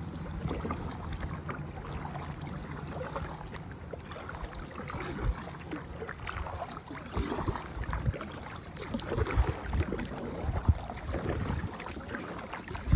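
Kayak paddle strokes in river water: the blades dip and splash irregularly, with drips and water noise, and the strokes get louder in the last few seconds.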